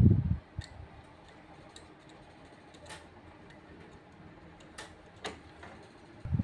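Scattered small clicks and taps as hands handle a replacement air-conditioner control board and its plastic wire connectors, with a brief low rumble right at the start and another near the end.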